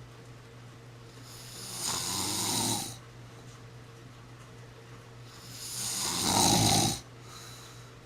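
A sleeping person snoring: two long snores about four seconds apart, each swelling for a second or more and then stopping sharply. A steady low hum runs underneath.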